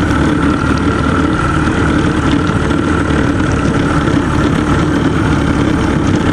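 A small motorboat's engine running steadily, a constant drone with no change in speed.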